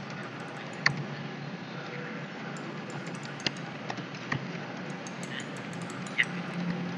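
Computer keyboard keys clicking at an irregular pace as text is typed, over a steady low background hum.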